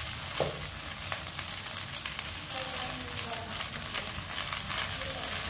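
Rice vermicelli and vegetables sizzling in a hot wok while being stir-fried, with a spatula scraping and tapping against the pan; a sharper tap about half a second in.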